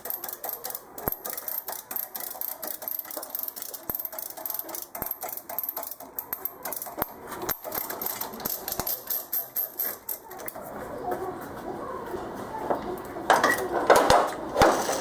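Rapid light metallic clicks and taps, with a louder flurry of clinks and knocks near the end.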